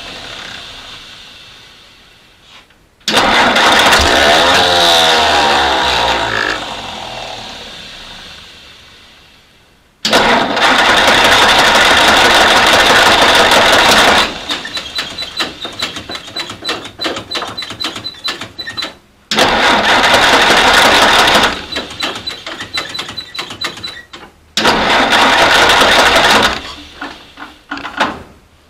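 1952 Willys M38A1 Jeep's F-head four-cylinder engine cranked by its starter in four separate attempts, on a jump pack with ether sprayed in, just after a carburetor rebuild. Each crank starts abruptly and trails off into uneven, choppy pulses without the engine settling into a steady idle.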